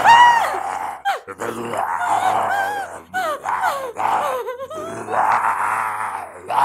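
Cartoon monster's voice: a small fanged creature snarling, growling and shrieking in several loud bouts, with a long rasping growl near the end.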